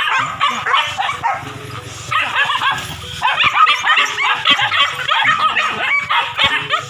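Young hunting dogs barking and yapping aggressively at a penned wild boar: rapid, high, excited barks, about four a second in the second half after a short lull at about one to two seconds in. This is baying at the boar, the aggression wanted in a beginner pig-hunting dog.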